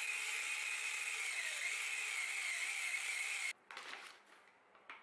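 Kenwood hand blender with its wire whisk attachment running at a steady speed in a plastic beaker of liquid, its pitch dipping slightly under load, then stopping suddenly after about three and a half seconds. A few light clatters follow as the blender is set down.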